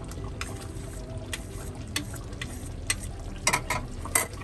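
Silicone spoon stirring thick, simmering tomato-based stew in a frying pan, with a steady bubbling hiss and scattered light clicks of the spoon against the pan, a few louder ones near the end.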